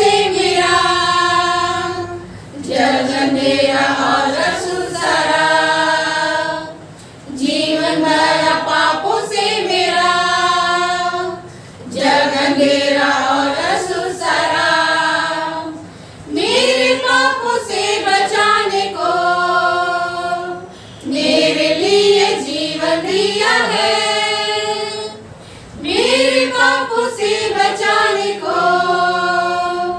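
A group of women singing a hymn together without accompaniment, in phrases of about four seconds with short breaks between them.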